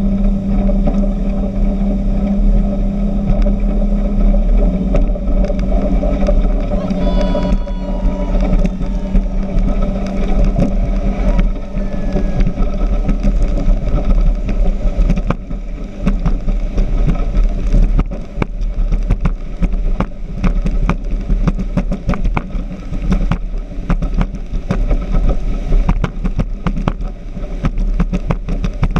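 Tornado speedboat engines running steadily under way. From about halfway through, frequent short knocks and buffets come over the engine.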